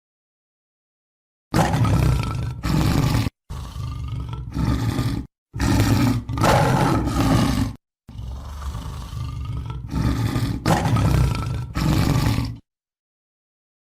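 Tiger roaring in four separate bursts, each cut off abruptly with dead silence between them, after a silent start; the fourth burst begins quieter and swells near its end.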